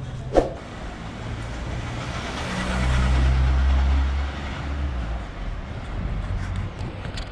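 A car driving past on the street, its engine and tyres rising to a low rumble in the middle and then fading. A single sharp clack near the start.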